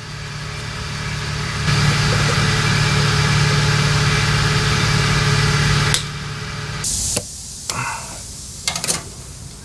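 A steady machine hum, like a motor running, grows louder and then cuts off about six seconds in. A short hiss and a few sharp clicks follow, fitting wire strippers cutting and stripping wires.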